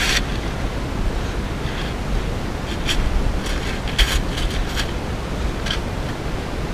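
Rustling and scraping of a person moving on loose-fill attic insulation: short crackly rustles every second or so over a steady low rumble and hiss.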